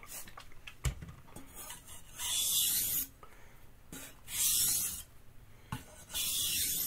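A Santoku knife's blade drawn across a wet whetstone in three pulling strokes about two seconds apart, each a scraping hiss just under a second long. There is a soft knock about a second in.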